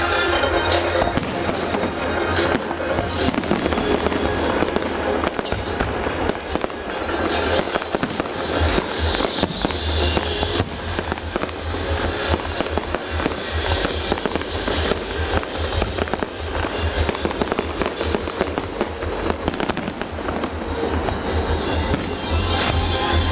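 Fireworks display: aerial shells bursting one after another with bangs and crackling, over music playing.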